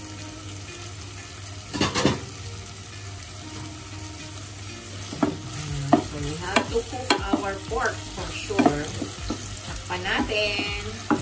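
Cubed pork, garlic and onion sizzling in hot oil in a pot while a wooden spoon stirs them, scraping and knocking against the pot. There is a sharp knock about two seconds in, and the knocks and scrapes come thick and fast from about five seconds on.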